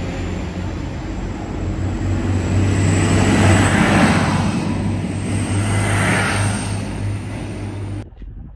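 Class 185 diesel multiple unit passing close by at speed, its underfloor diesel engine drone steady beneath wheel and rail noise that swells as each set of bogies goes past. The sound cuts off suddenly near the end.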